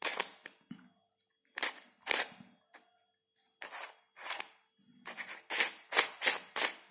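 Lanlan 2x2 dodecahedron puzzle being twisted by hand: its plastic pieces clack as the layers turn. The clacks come in short groups a second or so apart, then a quicker run near the end.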